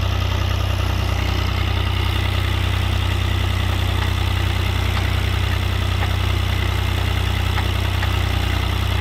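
Wallenstein GX900 backhoe's engine running steadily at idle.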